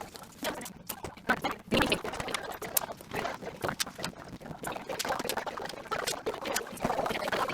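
Close handling noise: irregular clicks, taps and rustling as small objects, likely penny board parts and packaging, are moved and fiddled with by hand.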